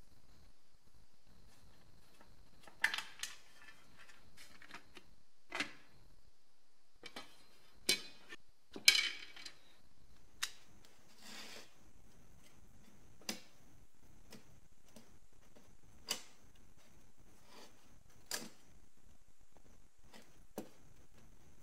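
Metal parts of an old kitchen scale being handled and set down on a workbench: scattered light clanks and taps at irregular intervals, the loudest about nine seconds in.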